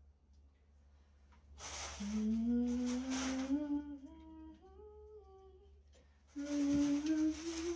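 A woman humming a slow, wordless melody in two phrases, the first climbing in steps and the second starting lower after a short break.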